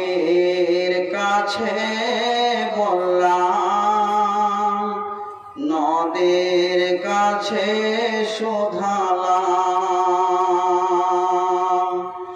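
A male preacher chanting in a melodic, drawn-out style into a microphone, in the sing-song delivery of a Bengali waz sermon. He holds long notes across two phrases, with a brief break about five and a half seconds in.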